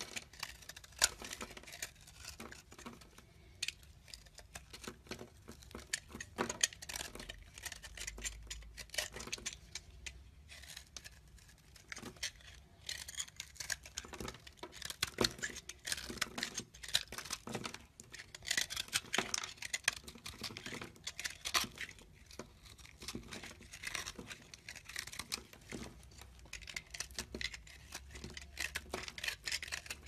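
A utility knife blade shaving and cutting into a dry, crumbly bar of soap: a dense run of small crisp crackles and scrapes as flakes and chunks break away, busier in stretches around the middle and again about two-thirds through.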